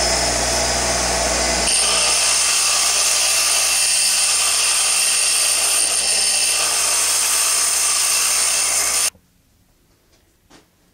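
Bench grinder running while a 3/16-inch socket is held against the wheel, a steady grinding hiss over the motor hum as the socket's walls are ground thinner. It cuts off suddenly about nine seconds in.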